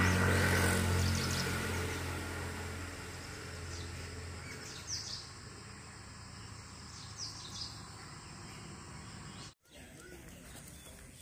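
Outdoor ambience: birds chirping in short calls twice, over a low steady hum that fades away during the first few seconds. The sound drops out for a moment near the end.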